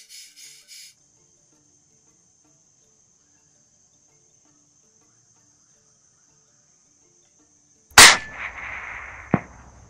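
A single loud rifle shot about eight seconds in, fired at a red junglefowl. A hiss follows for about a second, then a second sharp click. Before the shot there is only a steady, faint high insect buzz.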